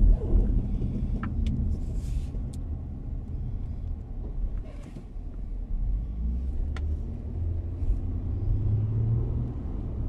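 Car driving, heard from inside the cabin: a steady low engine and road rumble, with a few short clicks.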